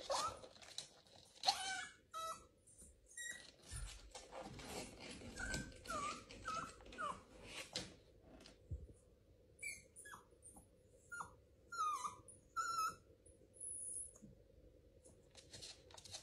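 Corgi puppy whining quietly: a string of short, high whimpers, one after another.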